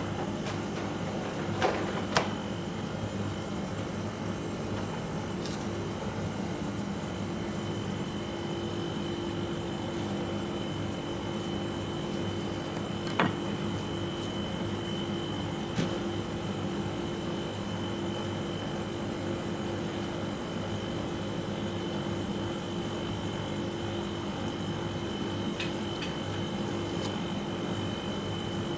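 Steady machine hum of kitchen equipment with a faint high whine, broken by a few sharp knocks of a sushi knife on the plastic cutting board: two close together about two seconds in, then single ones around thirteen and sixteen seconds.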